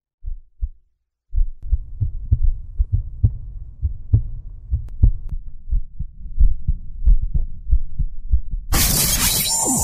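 Heartbeat sound effect: a low double thump, then a long run of low heartbeat thumps. Near the end a loud rushing noise with a sweeping tone cuts in.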